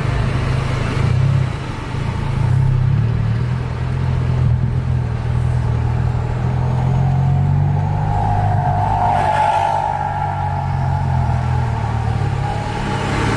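Steady low engine hum of road vehicles moving at low speed, heard from inside a car. A higher-pitched sound swells briefly about two-thirds of the way through.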